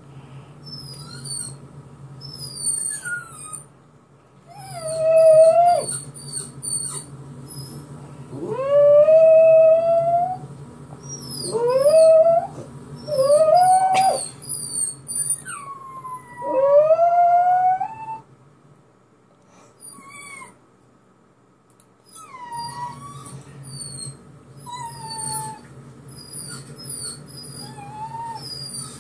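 Jack Russell terrier howling, about five long howls that rise in pitch, set off by a recording of its own crying played back to it. Short, high-pitched falling whines from the playback come and go throughout, with a quiet gap two-thirds of the way in.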